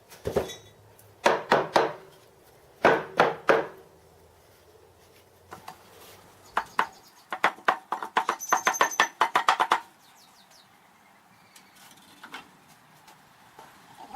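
Sharp knocks on a fresh metal casting in short bursts, ending in a quick run of about a dozen taps, a few with a high metallic ring. It is the sound of the cast fly cutter being knocked free of its sand mould.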